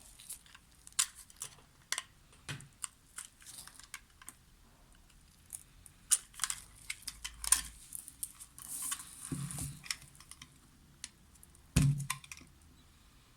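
A knife cutting a bar of soap into cubes: a run of crisp, irregular ticks and crackles as the blade goes through the soap. There is a louder knock with a low thud near the end.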